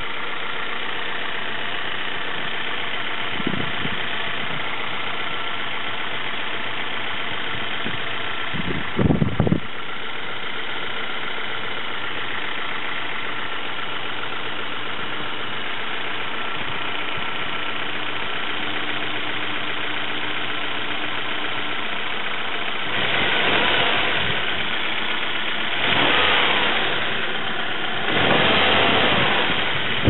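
Nissan QG18DE 1.8-litre four-cylinder engine idling steadily under the open hood. Near the end, three louder bursts of noise come over it.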